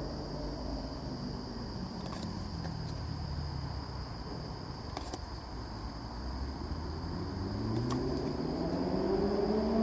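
A low engine-like rumble that rises steadily in pitch over the last few seconds, like a vehicle speeding up, with a few faint clicks.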